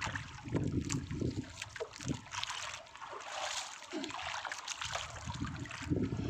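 Water splashing and trickling around a small wooden boat, with irregular knocks and bumps from someone moving in the hull.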